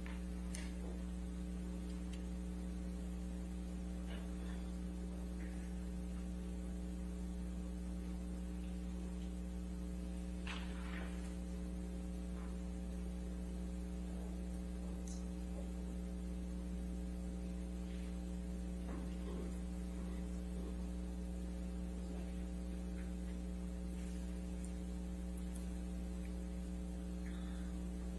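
Steady electrical mains hum with several overtones on top of it, unchanging throughout. A few faint clicks and rustles, the clearest about ten and a half seconds in.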